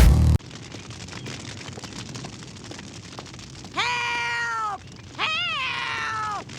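Two drawn-out cat meows, AI-generated sound effects, each about a second long: the first holds steady then drops in pitch, the second rises and then falls. A louder sound cuts off just after the start.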